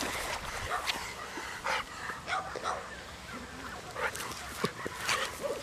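Jack Russell terrier giving a series of short barks and yips.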